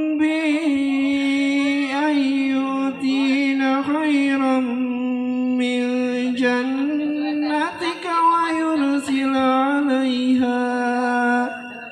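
Music: a chant-like voice or drone holds one steady note throughout, with wavering, ornamented tones above it and a slight change of pitch about two-thirds of the way in.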